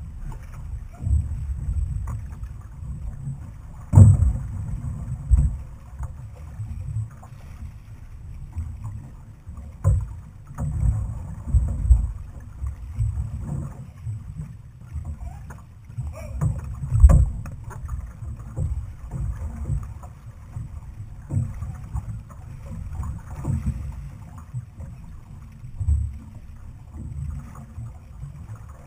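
Outrigger canoe under paddle: an uneven, gusty low rumble of wind buffeting the camera's microphone, broken by a few sharp knocks.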